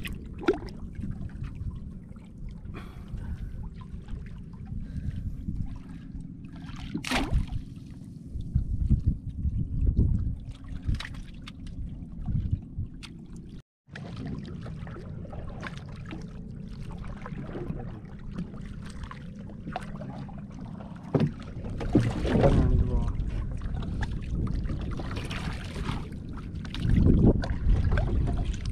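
Water lapping and sloshing around a small wooden outrigger boat, with low wind rumble on the microphone and occasional splashes.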